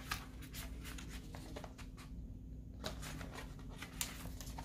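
Pages of a paper children's activity book being flipped and handled: a string of soft paper flicks and rustles.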